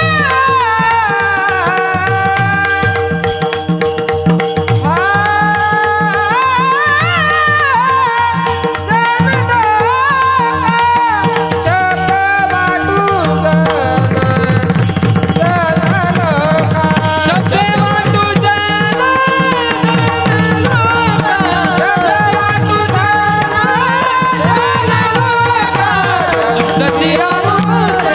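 Varkari kirtan music: a voice sings an ornamented, gliding melody over a steady held drone, accompanied by mridang. About halfway through, the mridang breaks into a fast, dense drumming passage.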